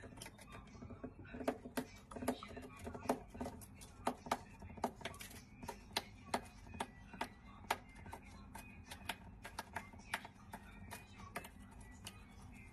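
Parrot tantrum: a run of sharp, irregular taps and clacks, two or three a second, with short voice-like calls mixed in during the first few seconds.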